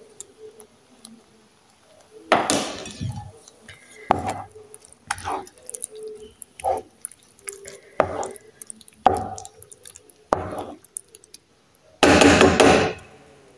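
Thick cream-and-mushroom sauce being stirred in a pan: about eight wet scraping strokes of the utensil through the sauce, roughly one every second or so, with a longer stir near the end.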